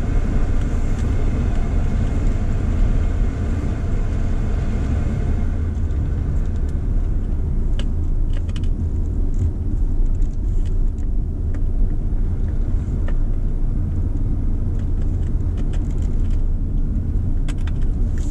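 Car driving on a paved road, heard from inside the cabin: a steady low road-and-engine rumble. For about the first five seconds there is a brighter hiss over it, and a few light ticks come later.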